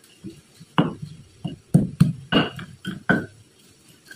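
Stone pestle (ulekan) striking and grinding in a stone cobek mortar, crushing shallots and green chilies for sambal hijau. A run of about eight irregular knocks starts about a second in, some coming in quick pairs.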